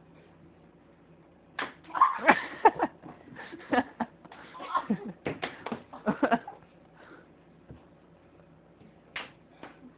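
Ping-pong ball being struck and bouncing: a quick run of sharp clicks and smacks over a few seconds, then a lull and one more hit near the end.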